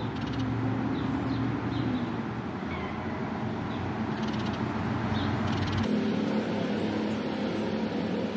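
Cat meowing over a steady low hum; the background changes abruptly about six seconds in.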